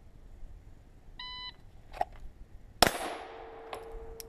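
A shot timer's electronic start beep, then a click, and about 1.6 seconds after the beep a single loud shot from a Glock 17 9mm pistol drawn from the holster. A ringing decay and a steady tone follow the shot.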